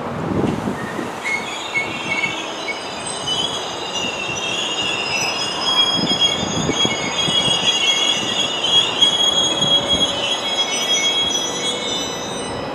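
Freight train wheels squealing on curved track: several high-pitched squeals at once, over a low rolling rumble. The squeal starts about a second in and stops just before the end.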